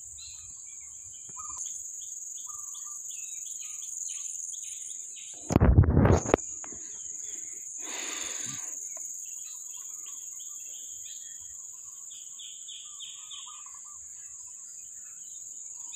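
Insects droning steadily at a high pitch, with many short bird chirps. About six seconds in there is a brief loud low rumble on the microphone.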